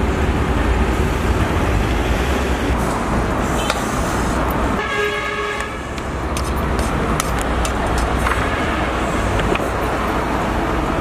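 Street traffic rumbling steadily, with a vehicle horn sounding once, briefly, about five seconds in. In the second half a kitchen knife clicks a few times against the cutting board and bones as cooked donkey meat is cut.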